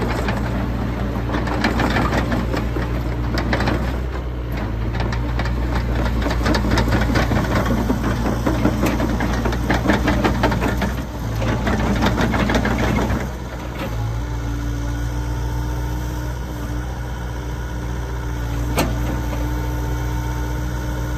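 Diesel engine of a Hitachi ZX85USB-5 mini excavator running, with heavy clattering and rattling for the first dozen seconds or so. Then it settles into steadier running with a faint whine, and there is a single sharp click near the end.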